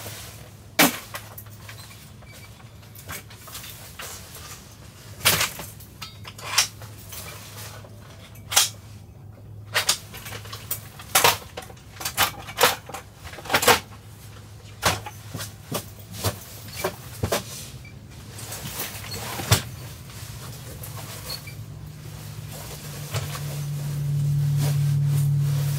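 Irregular knocks and clunks of camping gear being packed into an SUV's cargo area, as flat boxes and bags are set down and pushed into place. A low steady hum runs underneath and grows louder near the end.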